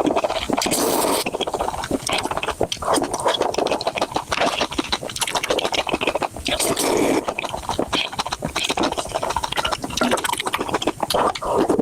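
Close-miked eating sounds: a person chewing instant noodles, with many quick wet clicks and smacks of the mouth.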